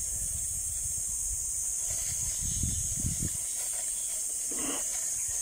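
Steady high-pitched insect drone from the surrounding trees, over a low, uneven rumble of wind on the microphone. A brief rustle comes about four and a half seconds in.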